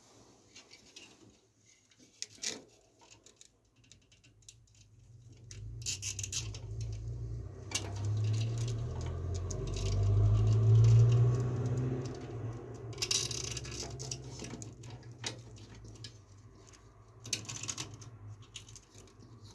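Small hard parts being handled: scattered clicks, taps and rustling. Under them a low hum swells in the middle and then fades.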